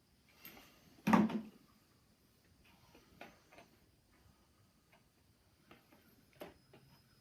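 Knocks and clicks of a long screwdriver and stock screw being worked into a shotgun's stock, with one louder clunk about a second in and a few light clicks after.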